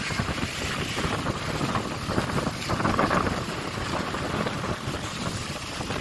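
Strong wind rumbling on the microphone over sea surf washing up the sand, on a day of rough waves.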